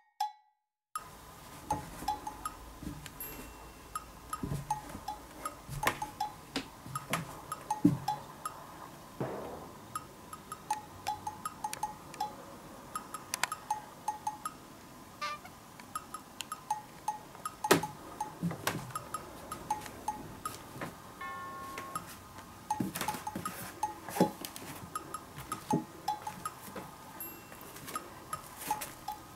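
Light background music: a tune of short, repeated wood-block and bell-like notes with clicky percussion.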